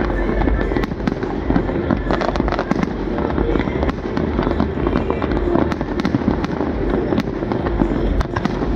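Fireworks display: many aerial shells bursting in quick succession, a continuous dense run of bangs and crackles.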